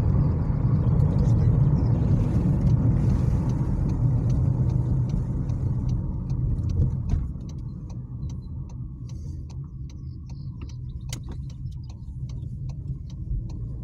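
Car cabin road noise: low tyre rumble over a broken, potholed asphalt road, with scattered knocks and rattles. About seven seconds in the rumble drops sharply as the car runs onto smoother asphalt.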